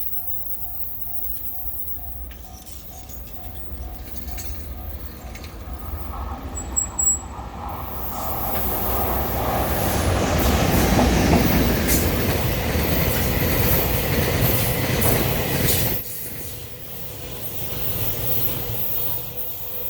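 JR Freight EH200 electric locomotive hauling a freight train past a level crossing: a rumble and clatter of wheels that builds from about eight seconds in, stays loud for several seconds with many rapid clacks, then drops off suddenly, leaving a quieter rumble. A level-crossing warning bell dings evenly in the first few seconds, and a short sharp sound comes just before the train noise swells.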